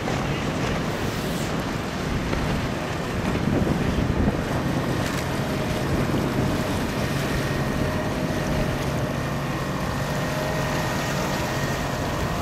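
Wind buffeting the microphone over water washing and splashing around a boat, with a faint steady hum underneath.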